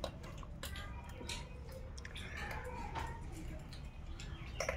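A rhesus macaque chewing chickpeas, heard as irregular small crunches and clicks.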